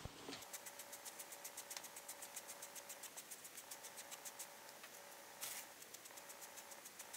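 A small sponge dabbed quickly against a clay pancake to stipple on acrylic paint, making light, soft pats about six a second over a faint steady hum.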